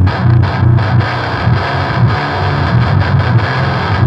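Solar A2.6 baritone electric guitar through a TC Electronic Eyemaster metal distortion pedal into a Mesa Boogie Rect-o-Verb's clean channel, playing a heavily distorted, rhythmic chugging riff with short stops between the chords. It is a Swedish death-metal tone, loud and bass-heavy.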